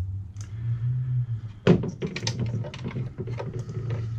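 Clicks and knocks of small parts being handled, with one sharp knock a little under two seconds in, over a steady low hum.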